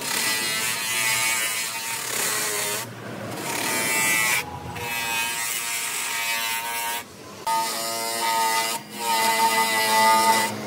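Electric motor driving a flexible-shaft sanding disc, running with a steady whine as the abrasive disc rubs over carved wood, broken by several brief breaks.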